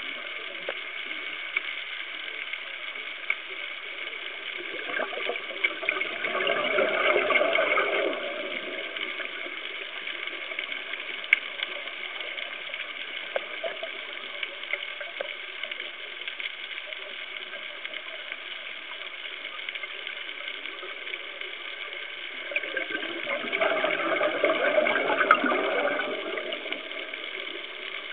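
A scuba diver's regulator exhaust bubbles heard underwater: two bubbling bursts of exhaled air, about two to three seconds each, one around six seconds in and another near the end, over a steady hiss.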